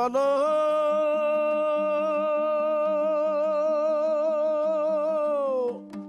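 A man singing one long held note with vibrato in the Kazakh zhyr style, over dombra strings ringing steadily underneath. The note slides up at the start and falls away near the end.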